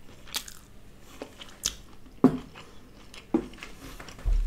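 Close-miked eating: chewing with a few sharp mouth smacks and clicks, the loudest about two seconds in, and a dull thump near the end.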